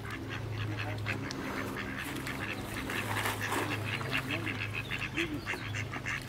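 Mallard ducks quacking, many short calls in quick succession, over a steady low hum.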